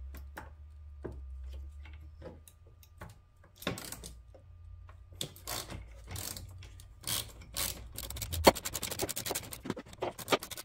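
Ratchet wrench loosening and backing off a 13 mm nut on a car's positive jump-start post: scattered clicks and knocks of the tool at first, then a fast run of ratchet clicks from about eight and a half seconds in. A low hum sits underneath until the clicking run starts.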